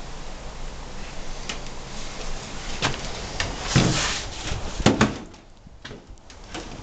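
A few sharp knocks and clicks with a scraping rustle, the loudest knock about five seconds in.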